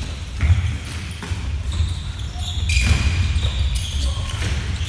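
Floorball play on a wooden gym floor: shoes thudding and squeaking, and plastic sticks and ball clacking in scattered knocks, all echoing in the hall.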